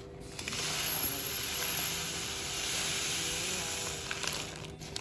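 Small dry seeds poured from a plastic bag into a small glass jar: a steady hiss of streaming grains that starts just after the beginning and tails off with a few light clicks near the end.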